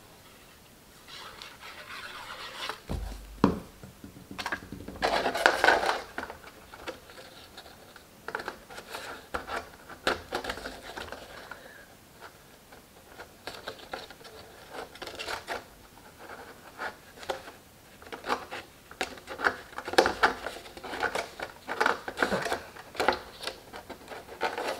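Cardstock being handled, positioned and pressed down by hand on a cutting mat: irregular rustling, scratching and light taps, with a louder rustle about five seconds in.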